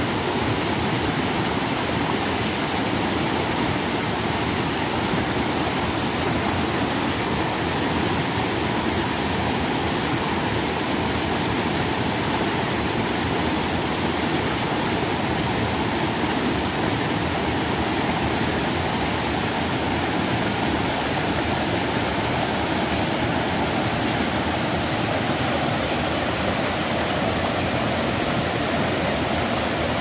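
Mountain stream water rushing and splashing over rocks, heard up close: a loud, steady rush that doesn't change.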